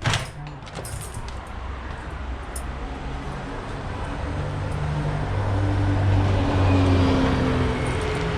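Street traffic, with a motor vehicle passing: its low engine hum builds to a peak about six to seven seconds in and then eases. A sharp knock sounds right at the start.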